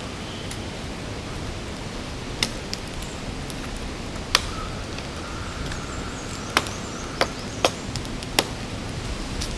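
Newly lit wood campfire burning: a steady hiss with sharp, irregular pops and cracks, about eight of them after the first couple of seconds.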